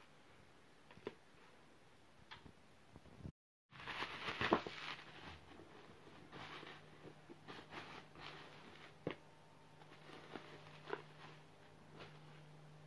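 Bubble wrap rustling and crinkling as an album box is slid out of its bubble-wrap sleeve and handled, with the loudest crinkling about four seconds in and scattered light taps and rustles around it. A low steady hum comes in at the same point.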